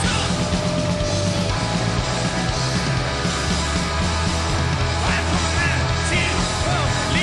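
Live rock band playing loudly, with a drum kit driving hard and cymbals crashing over electric guitar and bass.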